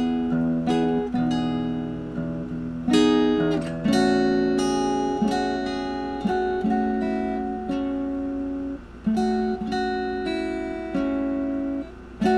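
Acoustic guitar in drop D tuning with a partial capo on the second fret, strumming a run of chords that ring out. A new chord is struck about every second.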